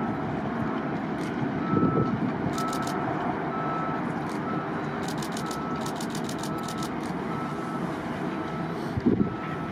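The Lockheed CC-130J Hercules' four turboprop engines and six-bladed propellers making a steady noise as the aircraft touches down and rolls out along the runway. A short high beep, like a vehicle's reversing alarm, repeats about every three-quarters of a second throughout, and wind buffets the microphone twice.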